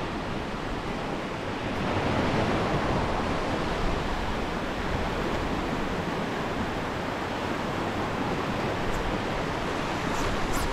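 Ocean surf breaking and washing up a sandy beach: a steady rushing that swells a little about two seconds in.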